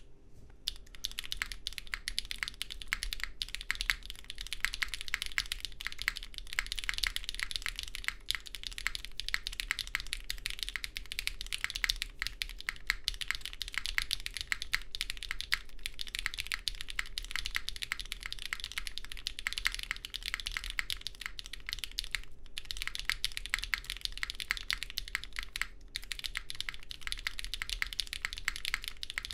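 Fast, continuous typing on a Salvation custom mechanical keyboard: lubed and filmed RAED switches on an FR4 plate, greased JWK stabilizers, and GMK Crimson Cadet keycaps, giving a dense stream of key clacks. The typing breaks off briefly twice near the end.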